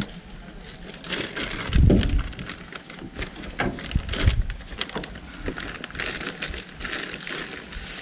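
Scattered light clicks and taps of small metal parts being handled, with a dull thump about two seconds in and another around four seconds.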